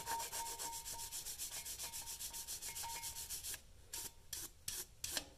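A wire brush scrubbing rust off a brake caliper mounting bracket in fast back-and-forth strokes, slowing to a few separate strokes near the end.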